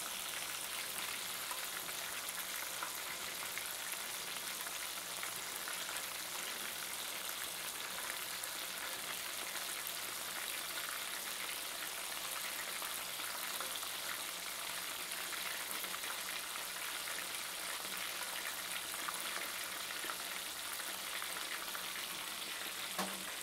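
Panko-breaded bull testicles deep-frying in hot oil in a cast-iron skillet: a steady sizzle with fine crackling throughout.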